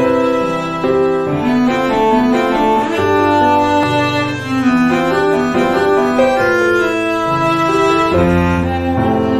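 Slow instrumental music of bowed strings, violin and cello, with piano, the notes held and changing about once a second.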